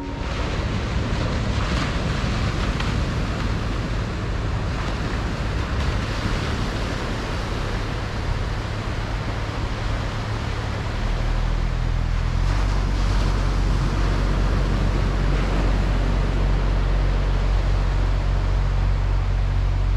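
Wind buffeting the microphone over the wash of surf on a sandy beach, a steady rushing noise with a deep rumble that grows stronger about eleven seconds in.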